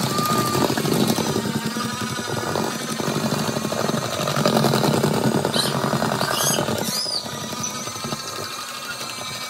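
Electric hand mixer running continuously, beaters whirring through cake batter; it quietens near the end.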